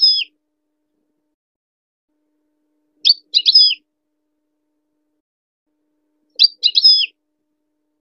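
European goldfinch giving a short call of three quick, high chirps, repeated about every three and a half seconds with silence in between.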